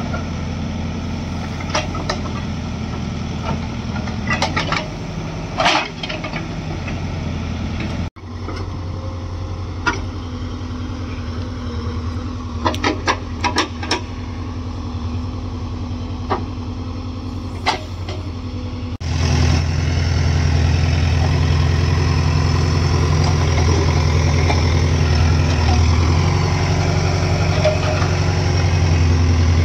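Diesel engines of a backhoe loader and tractors running steadily, with scattered knocks through the first two-thirds. The sound changes abruptly about eight seconds in, and again just before twenty seconds, where a louder engine hum takes over.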